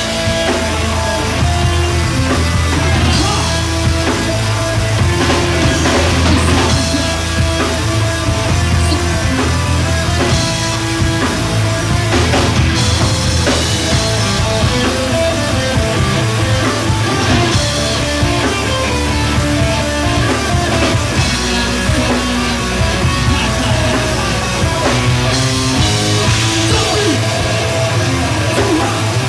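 A rock song with a full drum kit and guitar playing at a steady, loud level.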